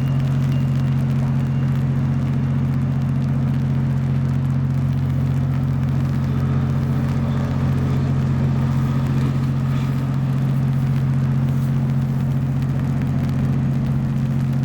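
Steady low engine drone that holds the same pitch and level throughout.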